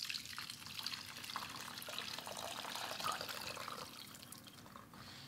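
Brown gravy poured from a pot through a mesh sieve, a steady trickle of liquid running through the mesh into a metal container below and easing off near the end as the thicker solids slide out.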